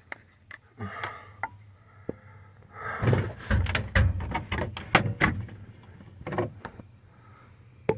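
Hands and tools working on the new ignition switch under a truck's dashboard: scattered clicks and knocks with some rustling, busiest in the middle.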